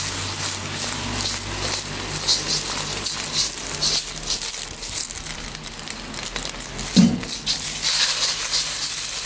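An egg frying in hot oil in a carbon steel wok: a steady sizzle full of sharp little spatter pops. A brief low thump about seven seconds in.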